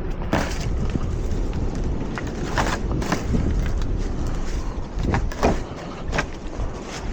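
Wind buffeting the microphone, an uneven low rumble, with a few short knocks and clanks scattered through it, the loudest a little after five seconds in.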